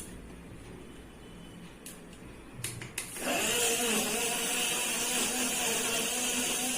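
Electric blender grinding mango pieces, milk and sugar into a milkshake: a few clicks, then the motor starts about three seconds in and runs steadily.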